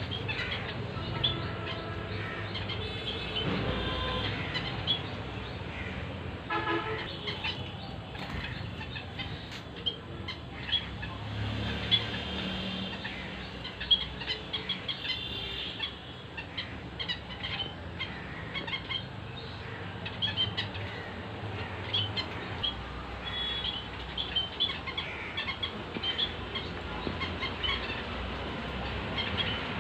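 Small birds chirping in short, repeated high calls over a steady low background rumble, with a few horn-like toots mixed in.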